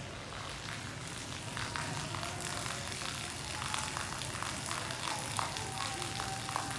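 Water pouring from a wall pipe and splashing onto wet brick paving below: a steady hiss with irregular spattering, which grows louder about a second in.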